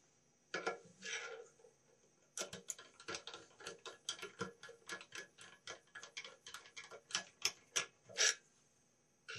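Phillips screwdriver tightening the brush-clamp screws on a 7.2-inch Ametek vacuum motor: a quick run of small metallic clicks, about four or five a second, with the loudest click near the end.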